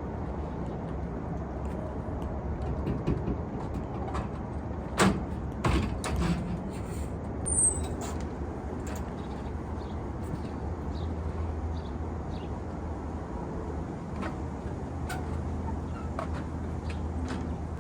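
Steady low rumble with a handful of sharp knocks and clanks clustered about five to eight seconds in, and a few fainter ticks later.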